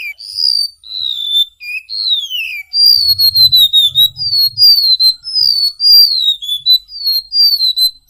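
Golden-bellied gerygone (remetuk laut) singing: a run of high, thin whistled notes, most sliding downward in pitch, some long and some short. From about three seconds in the notes come faster and louder in a steady string.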